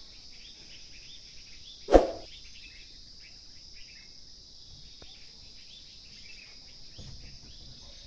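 Insects droning steadily in a high, even tone, with faint scattered chirps. A single sharp thump about two seconds in is the loudest sound.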